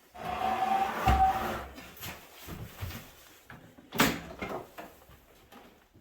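Metal parts of an old microwave being handled and pulled apart: a scrape of sheet metal with a brief steady tone in it, a heavy knock about a second in, then a few lighter knocks and one sharp clank near four seconds.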